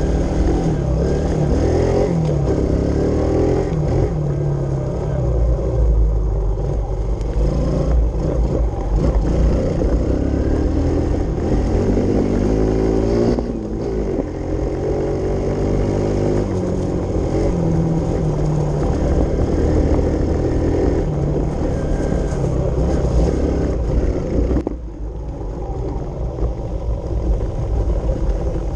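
Kawasaki KLX110 pit bike's four-stroke single-cylinder engine, heard close up from the handlebars while riding, revving up and down in pitch as it is throttled through the gears. The throttle eases off briefly about halfway through and again near the end.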